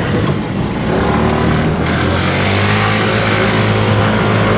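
A motor engine running close by over street traffic, getting louder about two seconds in.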